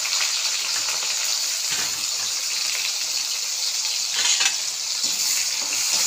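Sliced onions frying in hot oil in a kadhai, a steady sizzling hiss, with a couple of brief louder scrapes from a spatula stirring them, the strongest about four seconds in.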